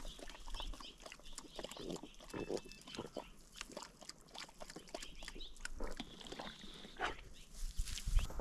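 Young Brittany bird dog sniffing hard at the ground in an irregular run of short sniffs, mixed with light rustling of dry grass, as she works bird scent.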